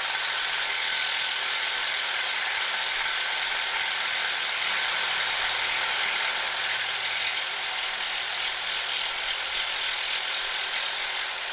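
Electric saw running steadily, its blade cutting into a seized axle bolt on an aluminum trailer bracket, with a faint high whine over the grinding.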